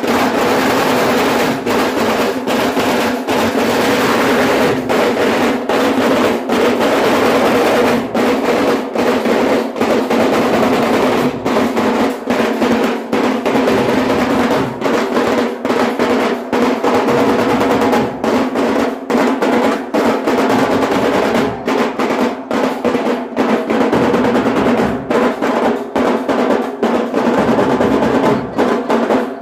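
Loud, continuous festival music driven by rapid drumming and drum rolls, over steady held notes.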